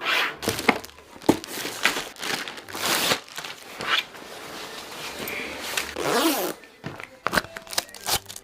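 Irregular rustling and crinkling with scrapes and several sharp clicks, like material or packaging being handled. A short rising-then-falling pitched sound comes about six seconds in.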